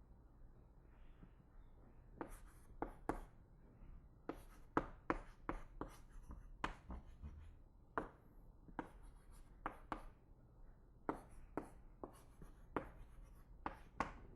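Someone writing by hand during a lecture: an irregular string of sharp taps and short scrapes, over a steady low hum.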